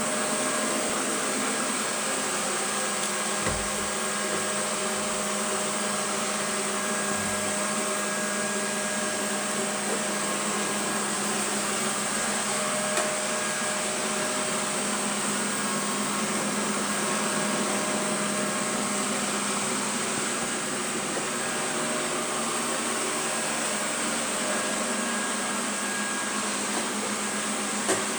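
Robot vacuum cleaner running: a steady whir with a high whine over it, broken by a few brief low knocks.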